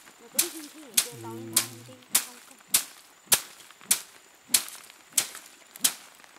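A stick beating a heap of dried plant stalks on plastic sacking to thresh them, ten sharp, even strikes about every 0.6 s.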